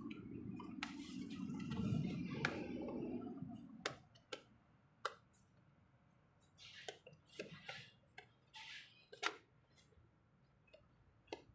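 Faint scattered clicks and taps, with a few short hissy scuffs. A low rumble fills the first few seconds and dies away.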